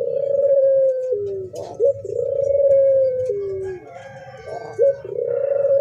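Local puter (Barbary dove) cooing in repeated phrases. Each phrase is a short rising note followed by a long held coo that drops lower at its end, about three times over.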